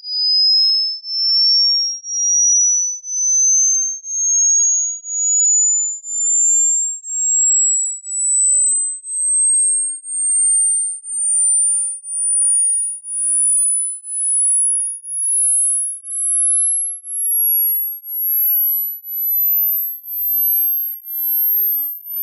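Hearing-test sine tone sweeping slowly upward from a high to a very high pitch, pulsing about once a second. It is a hearing-age test sweep: the point where a listener stops hearing the rising tone is taken as the age of their ears.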